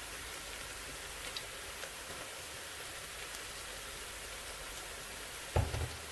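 Onions and curry leaves frying in oil in a pot, a steady soft sizzle with faint occasional crackles.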